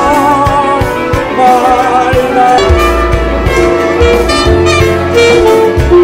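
Saxophone playing a melody over a band accompaniment with a bass line, its held notes sung out with vibrato.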